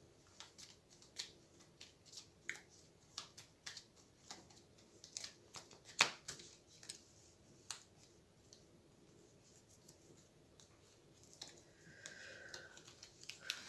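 Hero Realms playing cards being handled on a table: scattered soft clicks and taps as cards are fanned, drawn from a deck and laid down, with one sharper snap about six seconds in.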